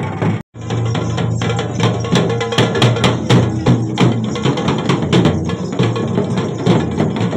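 Music with a strong, driving drum beat. It drops out completely for a moment about half a second in, then carries on.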